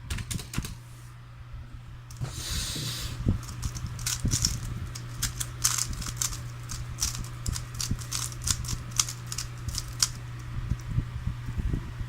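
A 3x3 Rubik's Cube turned rapidly by hand: irregular bursts of plastic clicks and clacks as its layers snap round, over a steady low hum.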